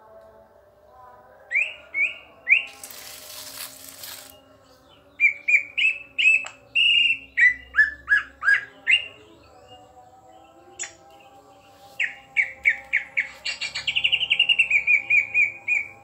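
Green leafbird (cucak ijo) singing: sharp rising chirps and falling whistles, with a harsh rasping burst about three seconds in and a fast run of repeated notes near the end.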